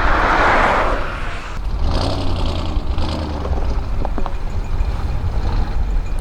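Road vehicle noise: a loud rush of sound in the first second, then a steady low engine rumble with a few faint clicks.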